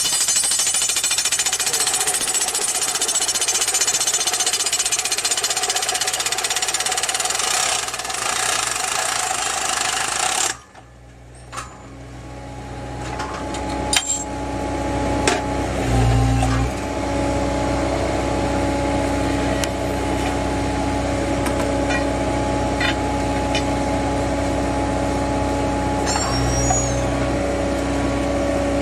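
Hydraulic percussion hammer of a Geoprobe direct-push drilling rig, driving rods into the ground with rapid, steady hammering. It stops abruptly about ten seconds in, leaving the rig's engine and hydraulics running with a steady hum and a few metal clanks.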